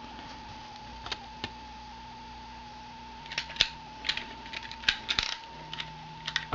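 Thin copper sheet being handled and pressed over a metal part to mark out a gasket: scattered sharp clicks and crinkles, two early on their own, then a quick cluster in the second half, over a faint steady whine.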